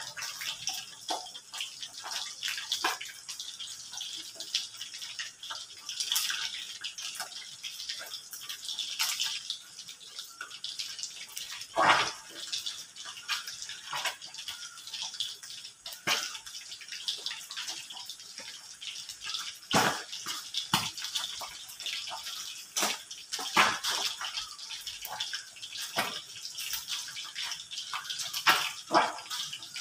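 Boiled chicken being torn and shredded by hand: irregular wet tearing and squelching, with occasional sharp clicks.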